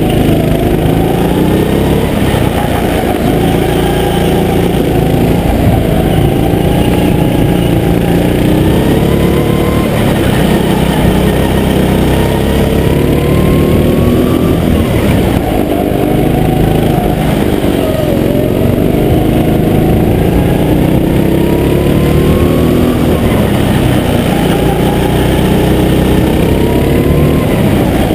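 Go-kart engine heard close up from the kart, running hard on a lap: its pitch climbs as it accelerates out of each corner and drops back as the driver lifts for the next, again and again.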